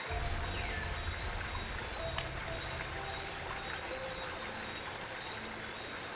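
Forest ambience: short high chirps from birds or insects repeat several times a second over a steady low rumble.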